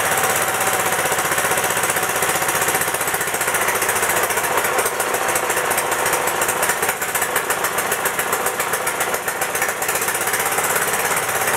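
Suffolk 75G14 single-cylinder petrol engine running with a rapid, hard beat, driving a 240-volt induction motor as a generator that is loaded with a 100-watt light bulb. The beat wavers and dips for a few seconds in the middle.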